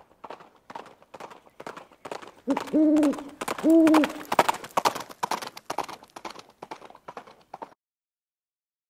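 Intro sound effect: a steady clopping, about three clicks a second, with two short hooting calls in the middle, the loudest part. It cuts off abruptly shortly before the end.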